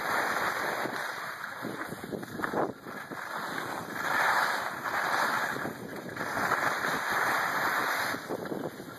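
Wind rushing over the microphone of a camera carried by a downhill skier, mixed with the hiss of skis sliding on packed snow. The rushing swells and fades in waves.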